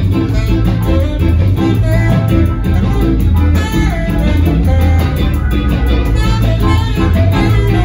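Live ska-jazz band playing: a tenor saxophone carries the melody over electric guitar and drums, with a heavy, steady low end.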